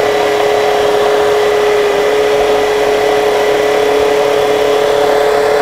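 Philips food processor motor running steadily, a loud even hum with one strong tone, as the blade cuts cold butter into the flour for scone dough.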